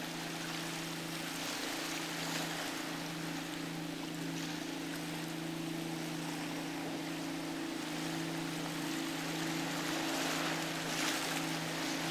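Boat engine running steadily at a fixed pitch, with the noise of waves and wind.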